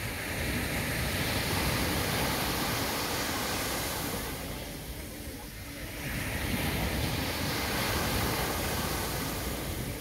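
Small waves breaking and washing up a sandy beach: one surge of surf over the first four seconds or so, a short lull, then a second surge from about six seconds in.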